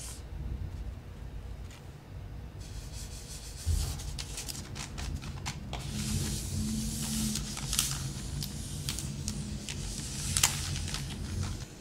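Paper being scrunched and crinkled close to the microphone, starting about three seconds in: irregular crackles with a few sharp louder crinkles.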